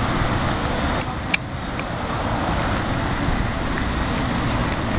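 Steady outdoor noise of wind and road traffic, with one sharp click a little over a second in.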